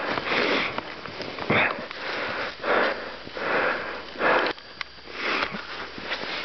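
A person breathing hard and fast through the nose close to the microphone, about one breath a second.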